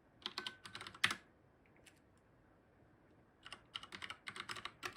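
Typing on a computer keyboard to enter a command. A short run of keystrokes comes first, then a pause of about two seconds, then a quicker burst of keystrokes near the end.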